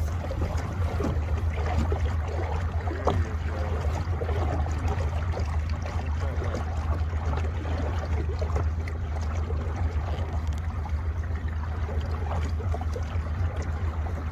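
Boat motor running with a steady low hum, with water lapping and trickling against the hull.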